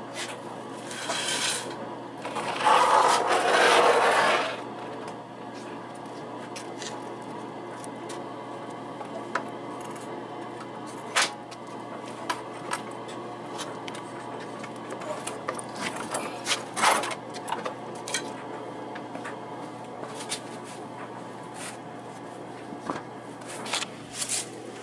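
Workshop handling noises under a scooter: a brief scrape, then a louder scrape lasting about two seconds a few seconds in, followed by scattered clicks and knocks over a steady low hum.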